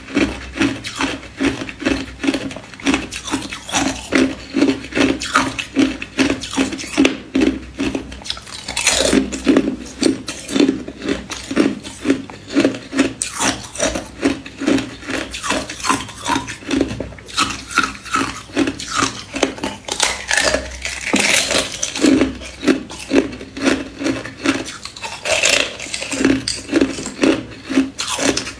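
Thin clear ice being bitten and chewed close to the microphone: a steady run of crunches, about two to three a second, with a sharper, brighter crack now and then as a fresh piece is bitten off.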